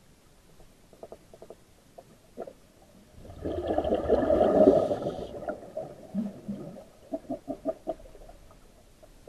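Scuba diver's regulator exhaling underwater: a loud burst of bubbling that starts about three seconds in and lasts about two seconds. Small clicks and knocks come before it and in quick runs after it.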